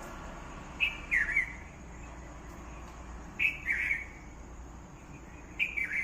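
A bird calling three times, about two and a half seconds apart, each call a short chirp followed by a quick falling note.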